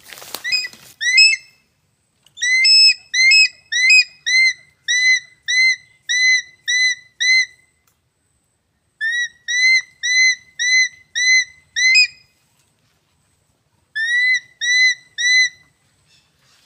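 An eagle's high whistled call: short arched notes about two a second, in three runs with pauses of a second or two between.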